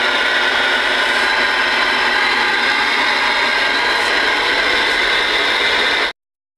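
Steady static hiss from the Galaxy DX-2547 CB radio's speaker, open-channel receiver noise after the other station stops transmitting; it cuts off suddenly near the end.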